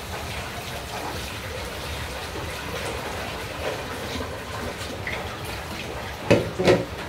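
Water splashing and running as rice is rinsed in a metal pot at a basin under a tap. Near the end come two sharp knocks about half a second apart.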